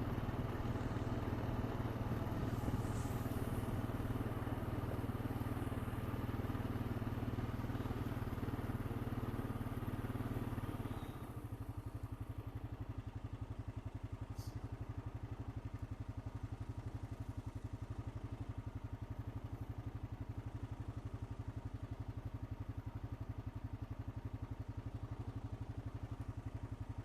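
Honda Rancher 420 ATV's single-cylinder four-stroke engine running steadily; about eleven seconds in it drops suddenly to a quieter, even, pulsing run for the rest of the time.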